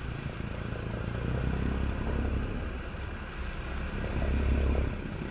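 Boat engine running steadily, a low hum with rushing noise over it, growing a little louder about four seconds in.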